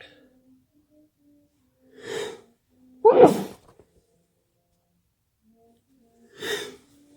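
A person sneezing: a gasping in-breath about two seconds in, then a loud sneeze a second later. Near the end another gasping in-breath starts.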